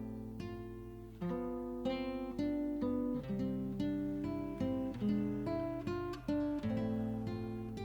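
Background music: acoustic guitar playing plucked notes and chords at an easy pace.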